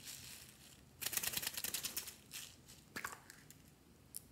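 A hollow plastic toy capsule is pried open and small beads spill out of it, giving a dense rapid rattling clatter for just under a second, about a second in, followed by a few separate plastic clicks.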